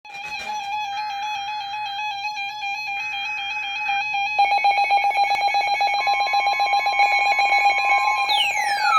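Synthesized electronic tones: a steady beeping tone with two short bursts of buzzy, data-like noise. About four seconds in it changes to a rapid pulse, and a falling sweep starts near the end.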